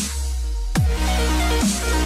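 Electronic dance music with a deep, steady bass line and kick drums that drop quickly in pitch, hitting roughly once a second, over a bright cymbal hiss.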